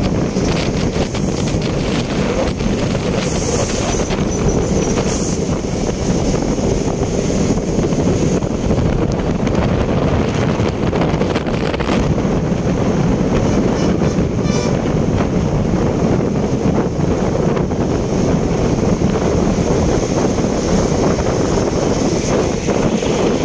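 Steady wind buffeting the microphone over road and traffic noise from a vehicle moving at speed in traffic.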